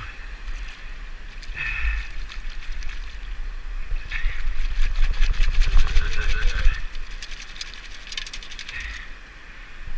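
Metal sand scoop digging into wet sand in shallow surf: water sloshing, with sand and grit rattling and hissing in the perforated basket, in three louder surges.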